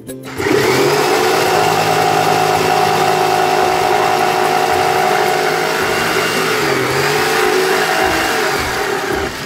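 Black & Decker corded jigsaw starting up and running steadily as it cuts a wooden dowel, its pitch dipping briefly under load about seven seconds in, then switching off just before the end.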